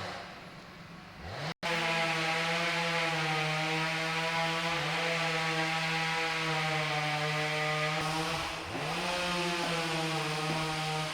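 Chainsaw engine running at high, steady revs. It drops off briefly at the start and once near the end, revving back up each time.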